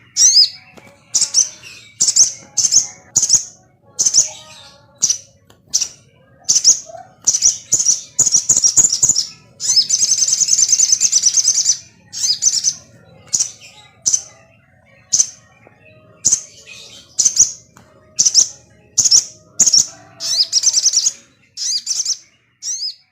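Sogon (ruby-cheeked sunbird) singing a lure song of sharp, high chirps, one every half second to a second, with a longer rapid twittering trill about ten seconds in. This is the agitated, lively 'gacor' call played to provoke other sogon into singing.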